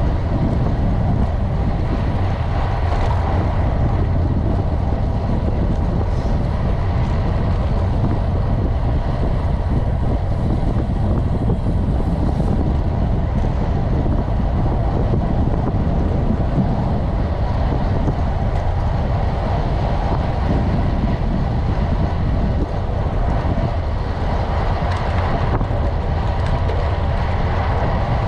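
Steady wind rumble on the microphone of a camera mounted on a road bike riding at about 30 km/h, mixed with tyre noise on asphalt.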